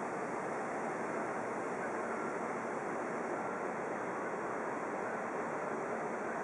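Steady, even outdoor background noise at a railway station, a continuous rushing hiss with no distinct events.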